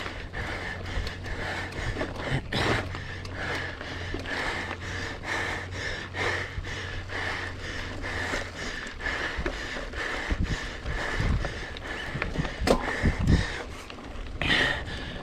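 Heavy, labored breathing and panting with sniffs and gasps from a sick rider whose chest and throat are so congested he can barely breathe. Clicks and knocks run underneath, and there are several louder sharp sounds near the end.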